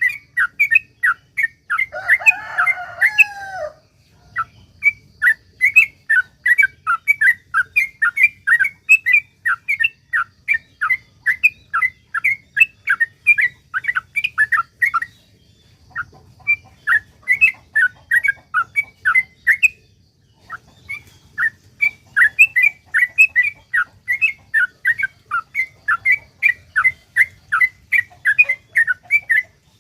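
Yellow-vented bulbul (trucukan) singing a long, fast run of chirping notes, about four to five a second, breaking off twice briefly. About two seconds in, a louder, lower warbling call overlaps for a second and a half.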